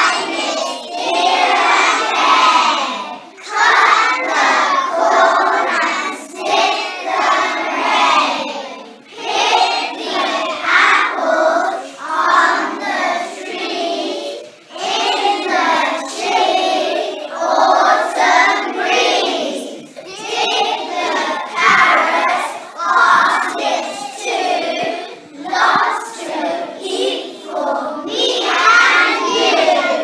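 A class of young children singing together in unison, in short phrases with brief pauses between them.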